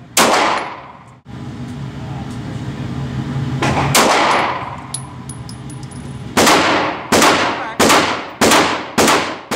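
Pistol gunshots echoing in an indoor shooting range: one shot just after the start, another about four seconds in, then five quick shots about two-thirds of a second apart near the end.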